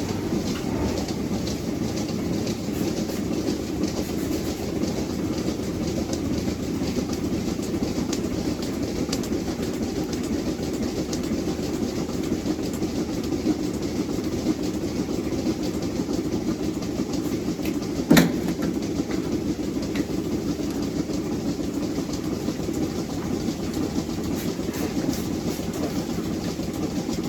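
Steady running of heavy machinery, a continuous rumbling clatter, with one sharp click or knock about eighteen seconds in.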